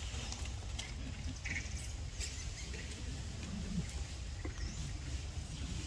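A few short, high-pitched animal chirps and squeaks scattered over a steady low rumble, with one brief lower call about three and a half seconds in.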